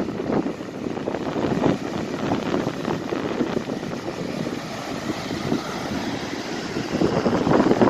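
Wind rushing and buffeting on the microphone outdoors at the beach, a steady rumbling hiss with irregular crackles.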